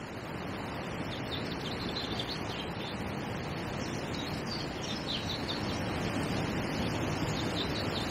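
Strong wind rushing steadily on the microphone and through reeds and trees, with small birds chirping now and then above it.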